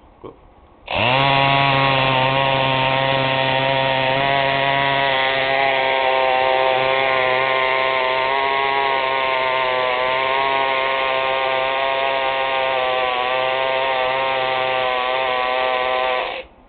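Small battery-powered electric toy outboard motor running with a steady buzzing drone. It starts up abruptly about a second in, pitch settling quickly, and shuts off just before the end.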